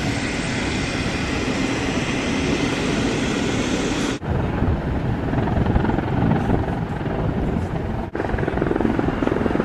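Steady outdoor noise, then after a sudden break about four seconds in, the low rumble of a jet airliner landing, which breaks off and resumes once more near the end.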